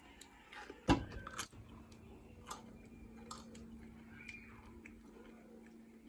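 A person eating rice with curry: chewing and small clicks, with a sharp knock about a second in and another shortly after.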